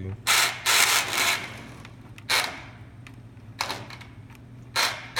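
Vengeance toy RC car's electric drive motor and gears whirring in short spurts as the throttle trigger is pulled, about five or six bursts, the second lasting nearly a second.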